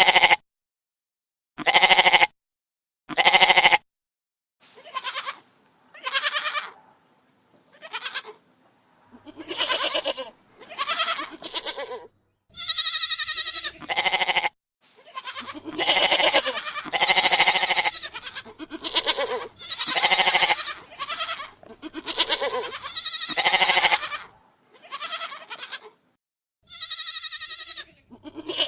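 Goat bleating over and over, a call every second or two with short gaps between. Some bleats are short and some are drawn out to about two seconds.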